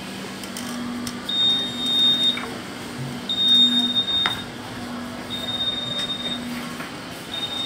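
An electronic alarm beeping: a high, steady tone about a second long, repeating every two seconds, over a faint low hum.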